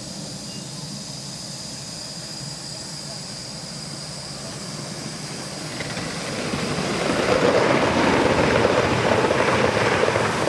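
Gauge 1 model train running past on the near track, growing louder from about six seconds in and loudest near the end.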